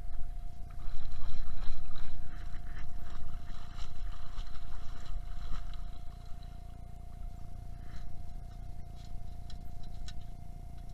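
Perforated stainless-steel sand scoop digging into the seabed in shallow surf, water and sand churning and rushing through its holes, heaviest in the first few seconds, then a few lighter clicks near the end. Heard muffled through a waterproof camera housing, over a steady low rumble and a faint steady tone.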